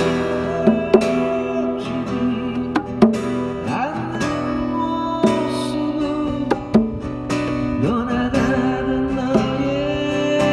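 Music: a strummed acoustic guitar with a held lead melody line that bends in pitch, during an instrumental break with no sung words.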